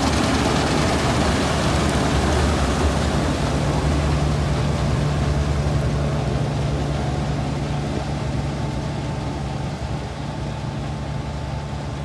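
Combine harvester running as it cuts wheat: a steady engine hum under the noise of the machinery, slowly fading as the machine moves away.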